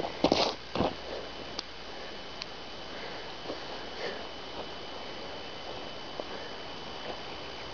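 A person moving: a few quick swishing sounds and a dull thud in the first second, then a steady faint hiss with a few small scattered ticks.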